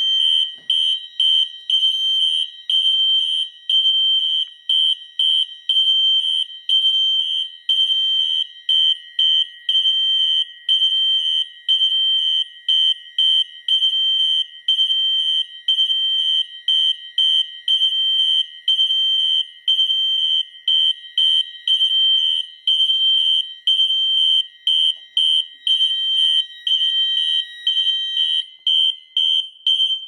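Several fire alarm horns sounding together in alarm, set off by a smoke detector sensing smoke: rapid, high-pitched piezo beeping, one horn pulsing in march-time code and another in temporal-3 (code 3). It all cuts off at the very end when the panel is silenced.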